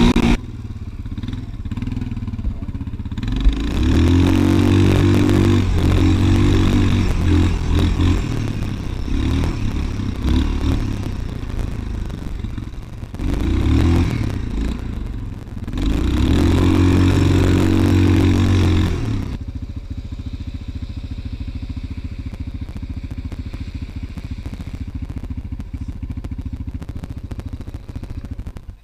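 Dirt bike engine being ridden hard on a sandy trail, revving up in two long pulls, the first around four seconds in and the second around sixteen seconds in. After that it settles to a steadier, lower running note for the last nine seconds.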